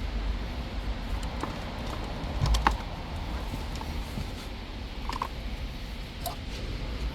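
Scattered light clicks and taps of hands handling plastic connectors and wiring, with a low thump about two and a half seconds in, over a steady low hum.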